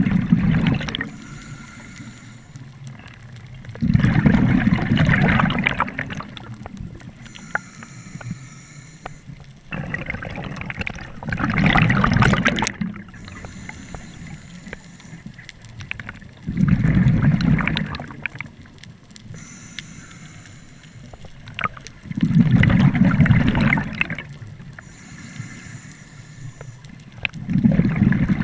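Scuba diver breathing through a regulator, heard underwater: a loud bubbling rumble of exhaled air about every six seconds, with a faint hiss of inhalation in between.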